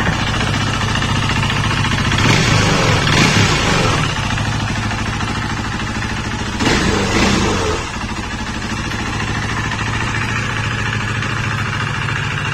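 KTM Duke 390's single-cylinder engine idling through its stock exhaust. It is revved twice, about two seconds in and again just past halfway, each time rising and dropping back to idle.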